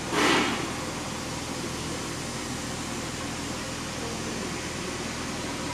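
Steady background hiss with a faint low hum. A short burst of noise comes right at the start.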